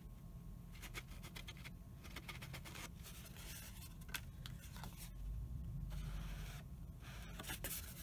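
Chalk ink pad rubbed along the edges of cardstock in short, scratchy strokes, with paper sliding and being shifted in between.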